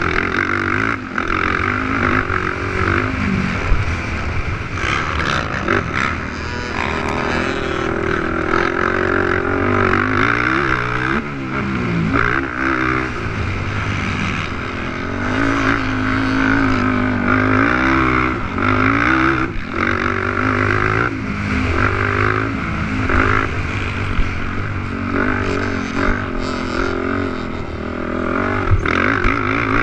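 450cc four-stroke racing quads revving hard, their engine pitch rising and falling again and again as they accelerate and back off around the motocross track.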